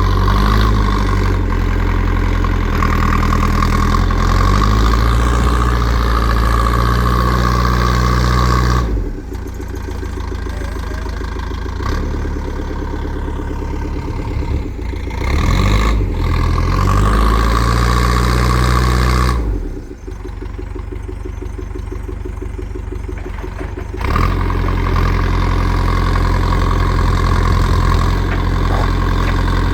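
JCB 3CX backhoe loader's diesel engine working hard, with a whine over it, easing back twice to a lower, quieter run for several seconds before picking up again, its pitch rising and falling as the revs change.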